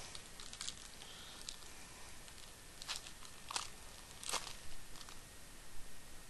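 Yu-Gi-Oh! Duelist Pack foil wrapper crinkling and trading cards being handled: a handful of short, sharp crackles and rustles spaced a second or so apart.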